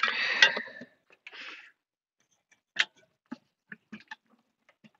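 Glass lid of a RoadPro 12-volt roasting pan being set on the pan. It clatters and scrapes on the rim for about the first second, with one sharper knock in the middle, followed by a few faint scattered clicks.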